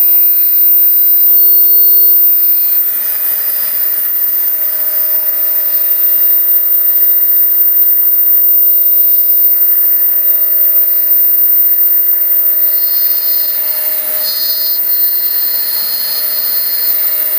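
A cutting machine running steadily: a high whine over a rough hiss, easing slightly about three seconds in.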